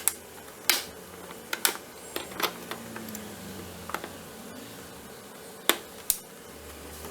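Scattered sharp clicks and knocks of water pump pliers on a spring hose clamp and of the plastic air intake hose being worked loose from the air filter box, about eight separate clicks at uneven intervals.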